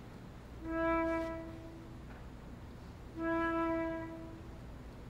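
A violin holds the same steady, quiet note twice, each lasting about a second and a half, with a pause of about a second between them.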